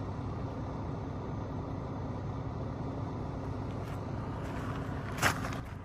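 A motor vehicle engine idling, a steady low hum, with one short sharp noise near the end.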